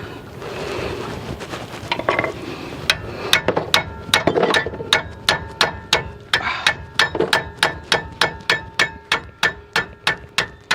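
Steady hammer blows on a wrench, about three to four a second, each leaving a metallic ring, to break loose a very tight brake caliper bracket bolt. The blows start about three seconds in.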